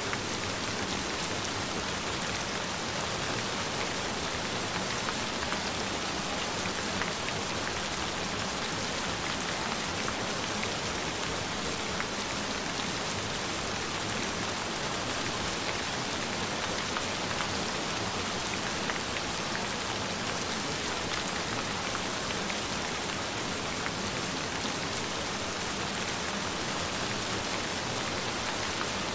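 Gentle rain falling steadily: an even hiss of many small drops that keeps up without pause.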